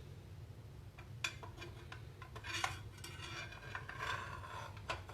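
A 7.25-inch steel circular saw blade being fitted onto the circular saw's arbor: several sharp metallic clicks and short scrapes as the blade and the saw's parts are handled.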